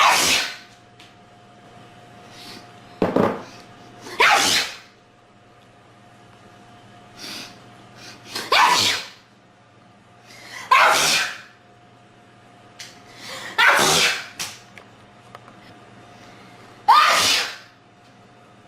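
A run of strong, explosive human sneezes, about seven, each a few seconds apart, several led by a short sharp intake of breath just before the burst.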